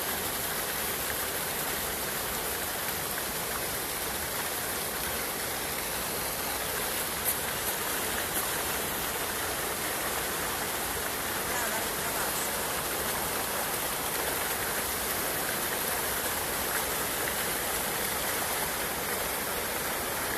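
Steady rushing of water pouring from a mill's wooden chute onto rocks and into the stream below.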